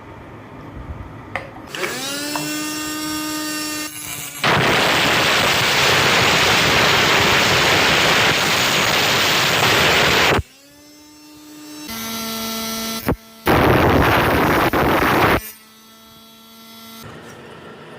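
Homemade 12-volt angle grinder driven by a 775 DC motor: the motor spins up with a rising whine, then a loud grinding hiss as the disc cuts for about six seconds before it stops. It starts again, whines steadily, and cuts a second time for about two seconds, then winds down.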